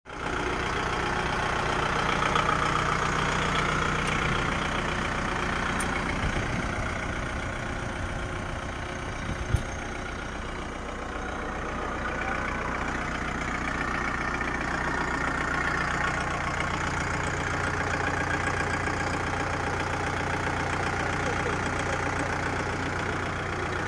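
Kubota tractor's diesel engine idling steadily, with one sharp click about ten seconds in.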